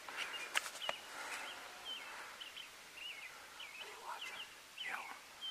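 Small birds chirping over quiet field ambience, with short, high notes repeating every fraction of a second. There are a couple of sharp clicks about half a second in, and a fainter lower falling call near the end.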